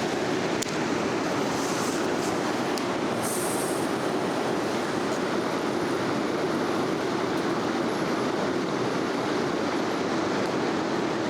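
Mountain stream water rushing steadily, a constant close rush with no change.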